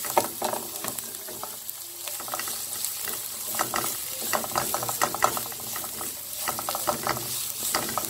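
Diced onion and garlic sizzling in oil in a nonstick frying pan, stirred with a spatula that scrapes and clicks against the pan in quick runs, busiest in the second half.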